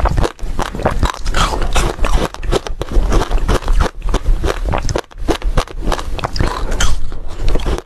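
Ice with basil seeds frozen in it being bitten and chewed: a fast, unbroken run of crisp cracks and crunches.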